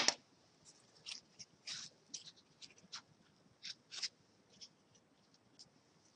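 Sodium hydroxide (lye) pellets tapping against a glass thermometer as the water in a foam-cup calorimeter is swirled: faint, irregular little clicks. One sharper knock comes at the very start.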